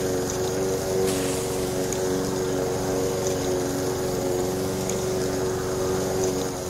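Motor of a miniature DIY rice thresher model running steadily and spinning the threshing drum, giving an even hum.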